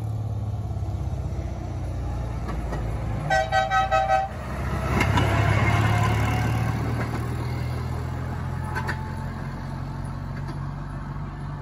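Steady low engine rumble, with a quick series of four or five short horn toots about three seconds in, then a louder, noisier swell a couple of seconds later.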